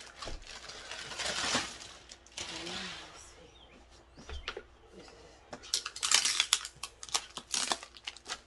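Plastic packaging rustling as a car seat base is pulled out of a clear plastic bag, then a run of sharp crinkles and crackles of plastic wrap in the last few seconds.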